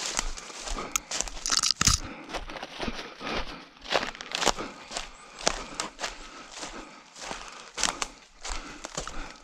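An orienteer's footsteps crunching and crackling over the forest floor, about two steps a second, with soft thuds beneath each step.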